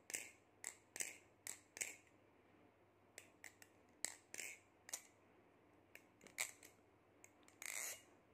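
LDY Orion balisong (butterfly knife) being flipped: the metal handles and blade clack and click against each other and rattle on their pivot bushings and washers. The clicks come in irregular runs, with a short pause about two seconds in and a brief swish near the end.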